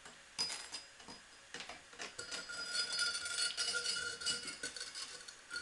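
Homemade steel tongs made of rebar and flat bar being worked down around a clay graphite crucible inside a small foundry: a few separate clicks, then from about two seconds in a run of metal clinks and scrapes with a steady ringing tone.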